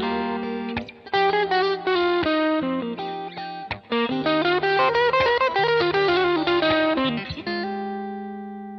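Electric guitar, a Suhr Asato Custom Standard, played through a Suhr Kiko Shiba Drive overdrive pedal. It plays a lead phrase of quick single notes over held low notes, then ends on a chord that is left ringing and slowly fades.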